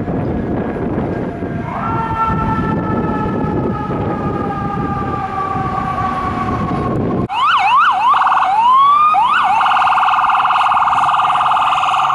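Low rumble of city traffic and engines with a faint tone falling slowly in pitch. About seven seconds in it cuts to the loud electronic siren of a responding FDNY ambulance: several quick rising yelps, a slower wail, then a rapid trilling warble.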